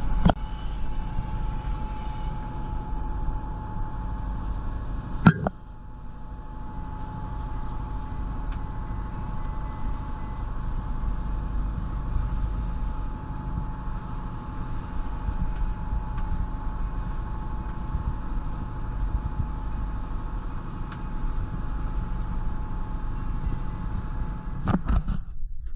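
A sailboat's engine running steadily while motoring: a low rumble with a steady hum over it. A sharp knock about five seconds in, and another near the end.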